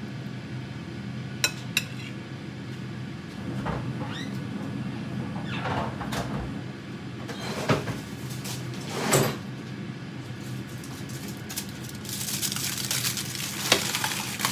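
Kitchen handling sounds: two sharp clicks about a second and a half in, then scattered knocks and clinks of dishes and utensils, over a steady low hum. A short hissing rush comes shortly before the end.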